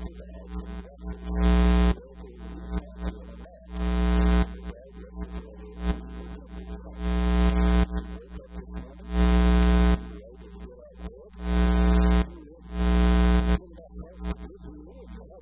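Loud bursts of electrical buzz and mains hum, each half a second to a second long, break in every second or two over a faint, garbled voice. This is the sound of an audio feed breaking up with interference.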